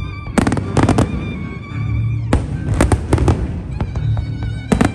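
Aerial fireworks going off in several quick clusters of bangs and crackles, over a music soundtrack played for the pyromusical show.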